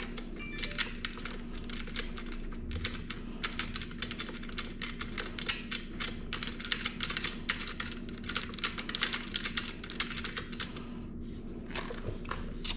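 Rapid, irregular light metallic clicking as the mounting bolts of a machined-aluminium rear disc guard are threaded in by hand, dying away about a second and a half before the end.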